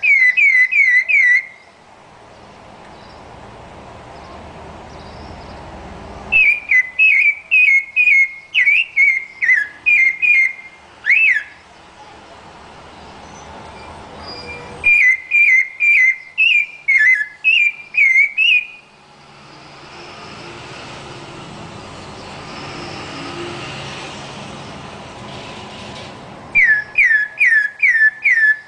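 Rufous-bellied thrush (sabiá-laranjeira) singing: loud phrases of quick, clear whistled notes repeated several times, broken by pauses of several seconds that hold only background noise.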